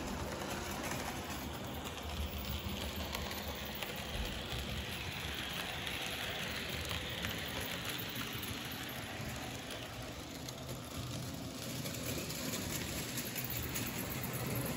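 Märklin H0 model trains running on metal track: a steady rolling hiss and rattle of wheels and motors, swelling around the middle as a model steam locomotive passes close by.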